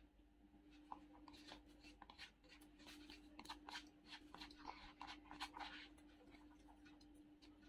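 Quiet clicks and scrapes of a spoon scooping biryani rice inside a paper food bucket, clustered in the middle seconds, with soft chewing. A faint steady hum runs underneath.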